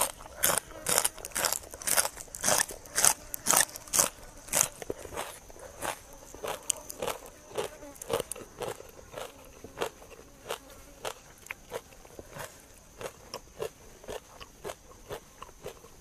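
Close-up crunching of a person chewing crisp raw green vegetable stalks, about two crunches a second, loudest in the first five seconds and softer after that.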